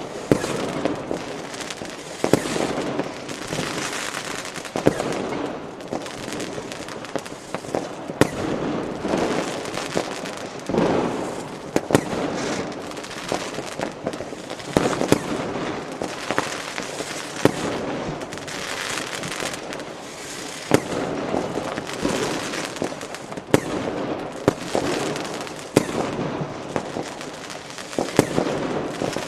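Fireworks and firecrackers going off together: a constant din of crackling and popping, with many sharp, loud bangs at irregular intervals throughout.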